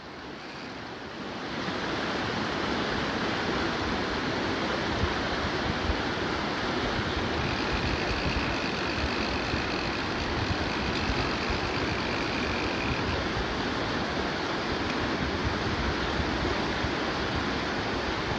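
Fast river rapids rushing steadily over rocks, growing louder about a second and a half in.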